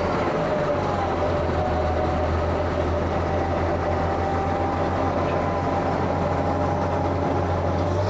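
1937 Leyland fire engine's engine running under power take-off load, driving the Metz turntable ladder as it elevates: a steady low drone with a faint higher whine from the drive.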